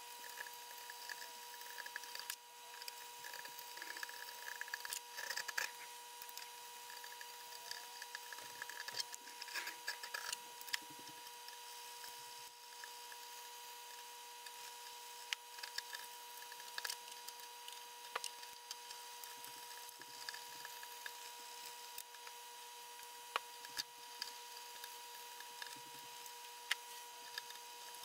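Plastic coil comb being drawn through the bent fins of a window air conditioner's condenser coil: faint, irregular scratching and small clicks as the teeth straighten the fins.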